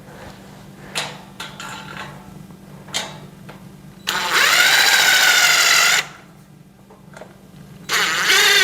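Cordless power screwdriver driving screws into a metal shelf frame: a few light clicks of handling, then the motor runs with a wavering whine for about two seconds and again briefly near the end.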